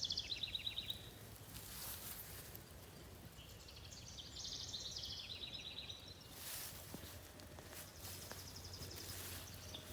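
A songbird singing rapid trilled phrases, one ending about a second in and another in the middle, each dropping from a higher trill to a lower one. Brief rustles of leaves come about six and a half seconds in and again near the end.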